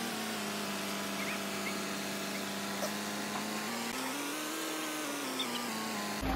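A steady mechanical whine from the flatbed recovery truck, rising in pitch about four seconds in and sinking back. It cuts off near the end, giving way to the truck's engine idling.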